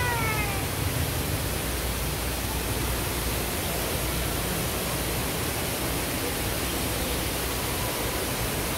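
Steady, even rushing hiss with no distinct events, with a brief falling voice right at the start.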